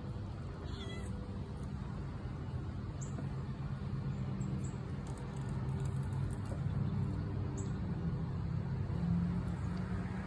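A cat meows once, briefly and high-pitched, about a second in, over a steady low hum that swells slightly in the second half.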